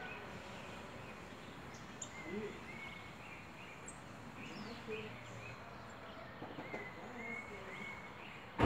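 Faint short chirping calls, several in a row, over a quiet outdoor background, with a few lower calls between them. A single sharp knock comes near the end.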